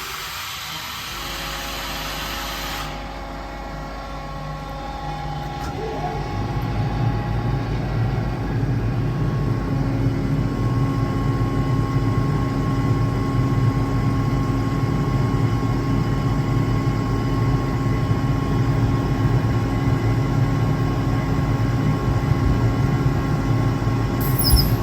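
Compressed air hissing out as the pressure is released, cutting off about three seconds in. Meanwhile the Kaeser ASK 28 T 15 kW screw compressor starts up about a second in, grows louder over the next few seconds and then runs steadily, with a short sharp sound near the end.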